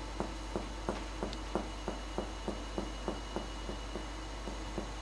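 Finger-on-finger (mediate) percussion of the chest wall over the back: a steady run of short soft taps, about three a second, growing fainter near the end. This is topographic percussion down the paravertebral line to locate the lower border of the lung.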